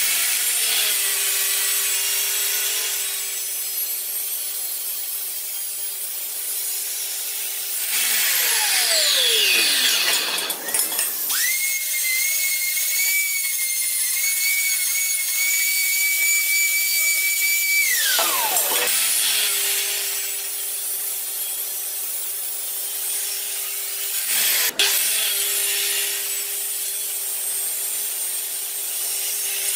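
An abrasive cut-off saw (chop saw) runs and cuts through square metal tubing, then winds down. An angle grinder grinds the cut end of the tube for about six seconds with a steady high whine, then winds down. The chop saw then runs and cuts again, with a sharp click near the end.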